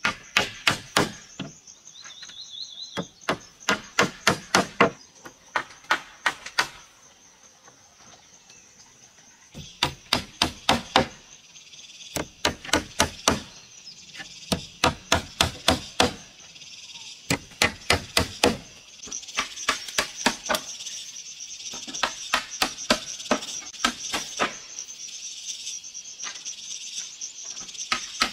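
Claw hammer driving nails into wooden planks: runs of quick blows, about three a second, broken by short pauses. A steady high-pitched drone runs underneath and grows louder in the second half.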